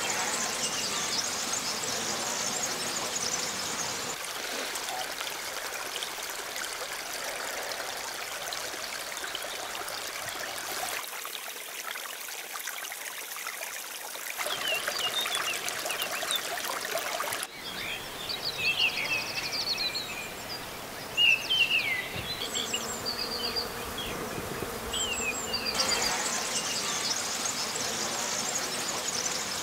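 Outdoor ambience of a steady hiss with small birds chirping in quick, high calls, mostly in the second half. The background changes abruptly a little past halfway, as at a cut between recordings.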